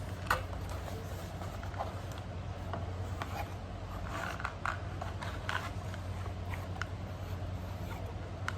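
Hard plastic being handled: light clicks, taps and scrapes at irregular intervals over a steady low hum.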